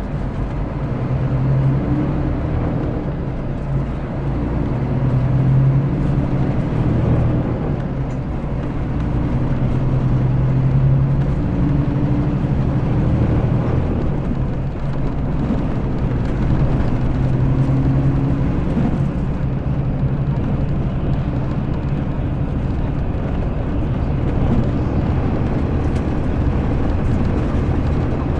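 Mercedes-Benz O-500RS coach's diesel engine running under way, heard from on board, its low note swelling and easing several times as the coach drives and works through its manual gearbox, over steady road noise.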